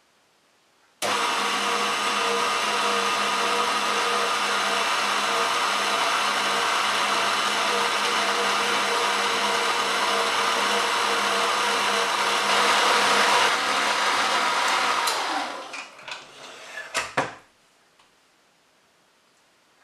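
Electric stand mixer switched on about a second in, beating icing sugar into mascarpone and butter with a loud, steady motor hum. It is switched off after about fourteen seconds and winds down, followed by a few knocks as the mixer head is handled and tilted up.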